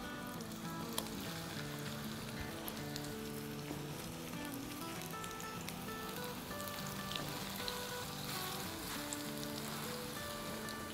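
Raw chicken-mince burger patties sizzling in shallow hot oil in a nonstick frying pan, a steady sizzle dotted with small crackles.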